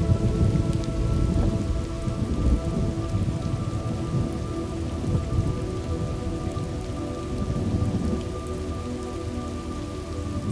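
Thunderstorm ambience: steady rain with a low thunder rumble that is heaviest in the first few seconds and then eases.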